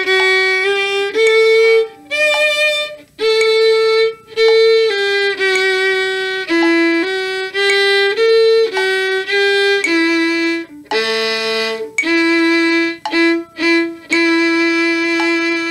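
Solo violin bowing a slow, simple melody note by note, ending on a long held note.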